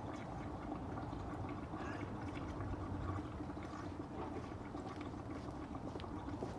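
Water running steadily from a hose wand into a plastic bucket, a continuous filling sound with a low hum under it.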